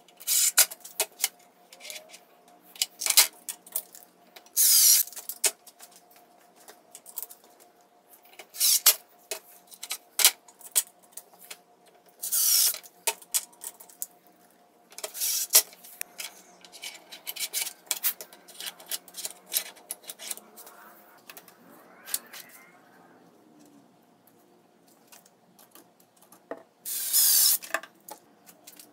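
A cordless drill driving screws in short bursts, about seven times, with clinks and knocks of steel drawer slides being handled between.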